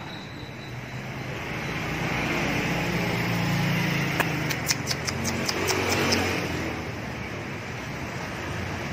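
A motor vehicle passing, its steady drone swelling and fading over a few seconds. Near the middle comes a quick run of about eight sharp ticks.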